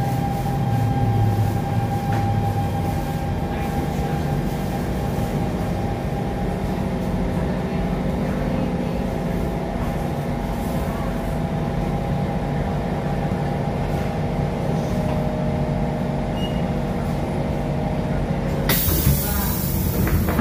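Inside an SMRT C651 metro car: the steady running hum of the train, with a few steady whining tones, as it slows and stops. About two seconds before the end there is a sudden loud hiss of air as the doors open.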